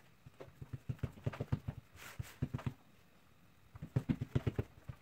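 Hands patting and pressing the edges of a slab of semolina dough filled with date paste on parchment paper: quick runs of soft, dull pats, several a second, in two spells with a short pause between them.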